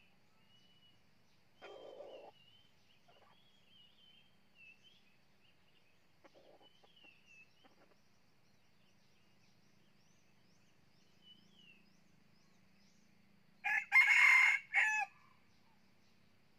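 Red junglefowl rooster crowing once near the end: a short, loud, clipped crow of about a second and a half, made of a few linked notes. Earlier there are two softer, shorter sounds.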